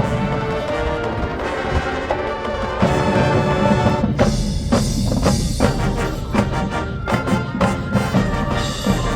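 Marching band playing: brass chords over drums and timpani, breaking into a run of sharp, accented hits from about four seconds in.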